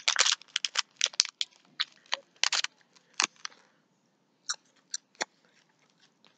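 Crunchy chewing of dried mealworm snacks (Larvettes): a run of short, sharp crunches, close together at first and thinning out, stopping a little after five seconds.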